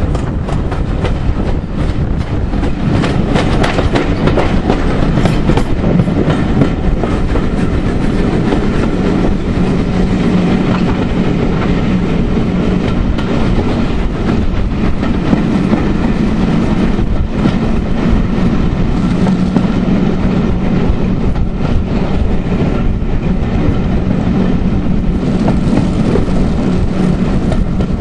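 Passenger train running, heard from an open carriage window: a steady rolling rumble of the coach wheels with a clickety-clack over the rail joints.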